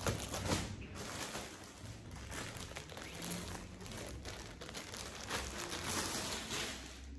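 Plastic packaging crinkling and rustling as it is handled, a dense run of quick crackles.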